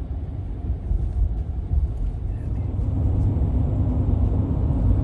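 Steady low road and engine rumble inside a pickup truck's cab while it is being driven.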